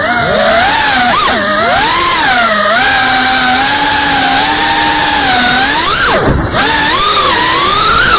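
Geprc Cinelog 35 FPV drone's brushless motors spooling up from the ground and whining in flight, the pitch rising and falling with the throttle. The throttle is chopped briefly about six seconds in, then the motors climb again.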